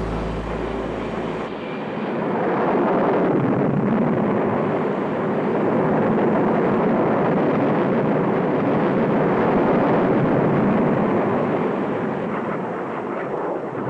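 Jet aircraft engine noise: a steady rushing roar of jet exhaust that swells about two seconds in and holds.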